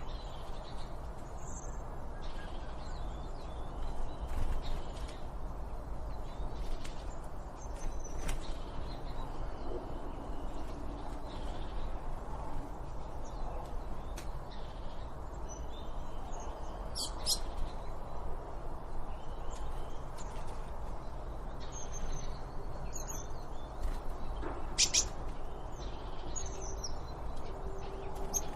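Wild birds chirping and calling in short, scattered notes, a few sharper calls standing out, over a steady low background noise.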